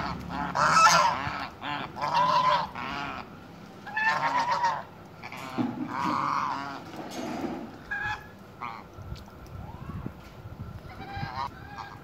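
White domestic geese honking repeatedly in a string of nasal calls, dense and loud for the first several seconds, then thinning to a few fainter calls near the end.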